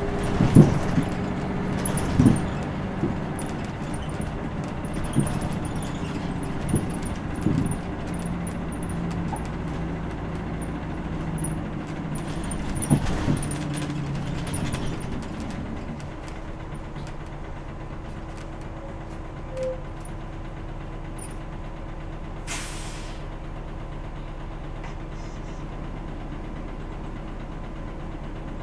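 Inside a 2001 diesel city bus: the engine pulls with knocks and rattles from the body, then settles to a steady idle about halfway through. A short hiss of air from the air brakes comes a few seconds later.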